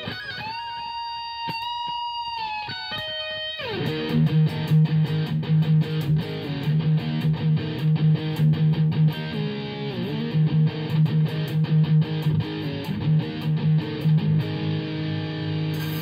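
Late-1980s Kramer LK-1BF electric guitar being played: a few held high notes bent up and down in pitch, a slide down about four seconds in, then a fast rhythmic riff on lower notes.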